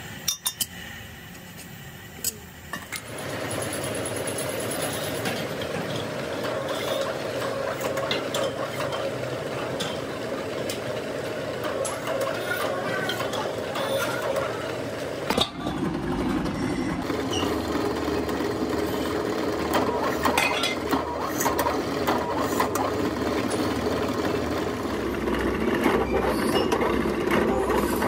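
A few clinks of metal parts, then from about three seconds in a pillar drill runs steadily, cutting into a cast donkey-pump body. About halfway through the sound changes to a lower steady drone with many small clicks, as a drill press taps a thread into the casting's flange.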